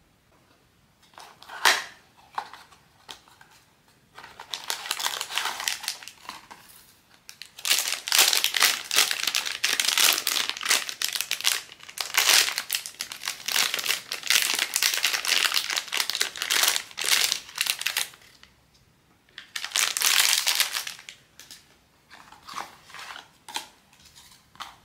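Blind-box packaging being crinkled and torn open by hand, in bursts with short pauses, the longest running for about ten seconds in the middle.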